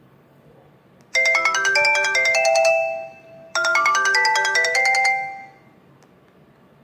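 Ringtone melody from a ZTE Z222 cell phone's speaker: a short, bright phrase of quick notes plays about a second in, and repeats once after a brief pause.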